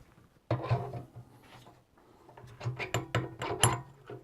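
Drill chuck being handled and turned over: a run of short metallic clicks, knocks and rubbing, busiest in the second half.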